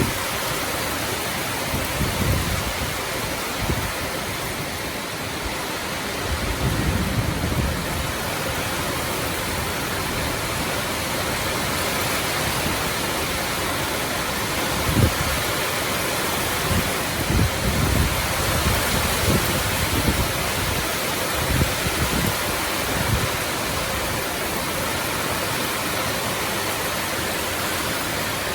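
Heavy rain pouring down, a loud, steady hiss, with irregular low rumbles now and then, several of them close together around the middle.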